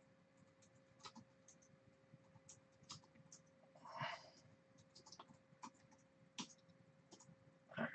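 Near silence: faint, scattered clicks of a computer keyboard and mouse, a short soft breath-like hiss about four seconds in, and a faint steady electrical hum.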